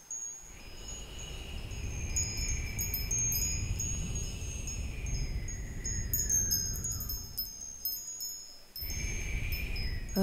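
Soundtrack ambience of high tinkling chime tones over a low rumble, with a faint high tone that slowly slides downward over the first seven seconds. The sound cuts out briefly near the end and picks up again.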